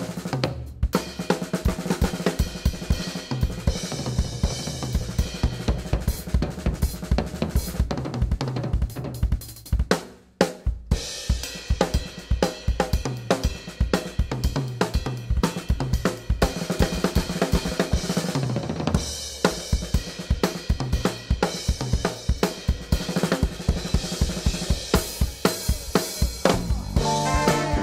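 A drum kit played as a solo break: snare, bass drum, hi-hat and cymbals in a busy groove. It stops briefly about ten seconds in, then picks back up. Near the end the horn section comes back in over the drums.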